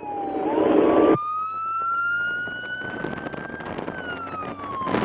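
Police motorcycle's siren in wail mode: one slow rise in pitch over about three seconds, then falling again near the end. Under it a rush of road and wind noise drops off abruptly about a second in.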